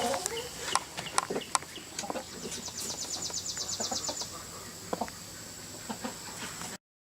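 Birds calling: a rapid, high-pitched trill of about ten notes a second, lasting nearly two seconds, among scattered sharp clicks and lower, clucking calls.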